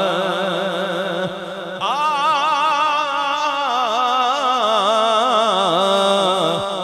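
A man chanting a devotional salawat into a microphone, unaccompanied, in long drawn-out melismatic notes with a wavering vibrato. He pauses briefly for breath about a second and a half in, then starts a new phrase with a rising glide and holds it.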